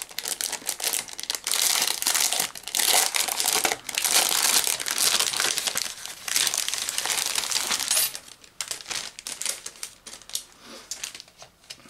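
Crinkly packaging being handled and opened, crackling steadily for about eight seconds, then dropping to quieter, scattered rustling.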